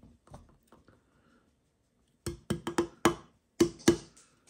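A quick run of about seven sharp knocks on a hard surface, in two clusters about halfway through, each with a short hollow ring.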